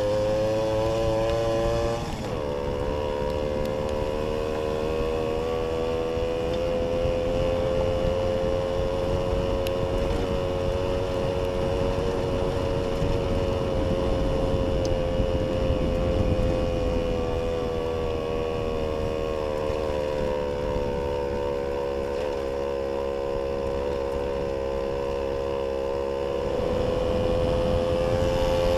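Jawa 555 moped's 50cc two-stroke single-cylinder engine running steadily while ridden. The engine note dips sharply and briefly about two seconds in, sags slowly in the middle and climbs again near the end.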